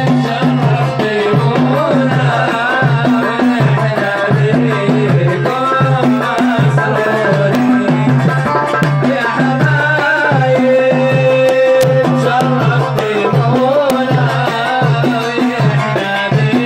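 Loud Middle Eastern dance music: a tabla (darbuka) drum rhythm over a repeating deep bass beat, with a wavering melody line on top.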